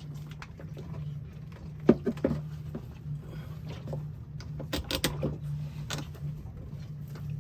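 Hand tools clinking and knocking against battery cables and terminals during wiring work, in two short flurries about 2 and 5 seconds in, over a steady low hum.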